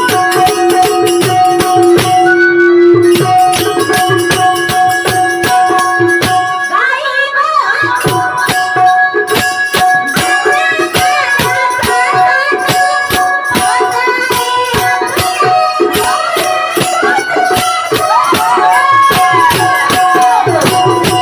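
Music with fast rattling, jingling percussion over steady held tones. A wavering, bending melodic line comes in about a third of the way through and again near the end.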